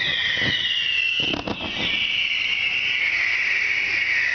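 Aerial fireworks bursting, with several dull booms in the first two seconds. Under them runs a continuous shrill whine that slowly falls in pitch.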